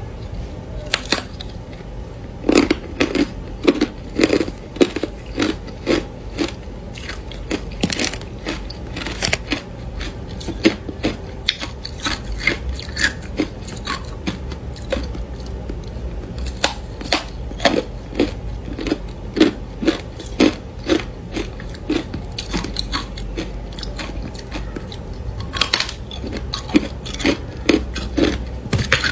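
A person biting and chewing a stick of hard clear ice coated in matcha powder: runs of sharp crunches, several in quick succession, with short pauses between bites.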